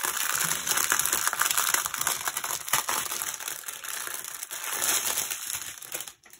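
Clear plastic packaging crinkling continuously as hands handle and unwrap a pack of bagged diamond-painting drill strips; it stops shortly before the end.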